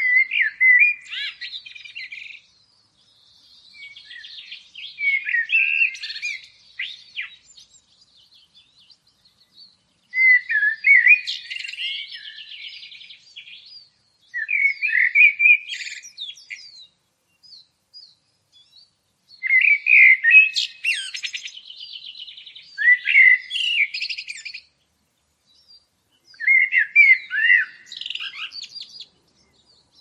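A songbird singing in repeated phrases of quick whistled and twittering notes. Each phrase lasts a couple of seconds, with short pauses between them.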